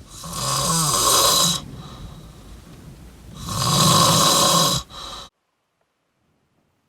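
A man snoring: two long snores about three seconds apart and a short one after them, then the sound cuts off suddenly.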